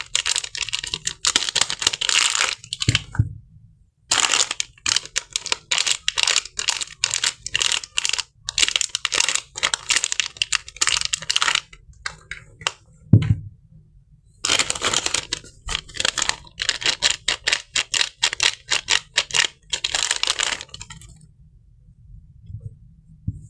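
Crisp soap wrapper being crinkled and crackled by hand in long stretches of rapid crackles with short pauses between. There is a soft thump about three seconds in and again about thirteen seconds in.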